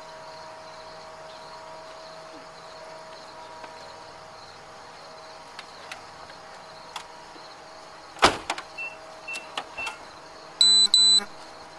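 A steady faint hum, broken about eight seconds in by one loud thump, then a few light clicks, and near the end two short loud electronic beeps.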